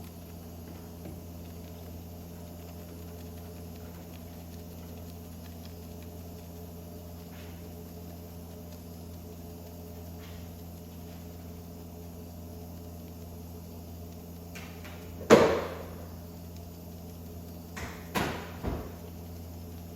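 Steady low hum, broken about three quarters of the way through by one sharp, loud knock with a brief ring, then a few lighter knocks near the end.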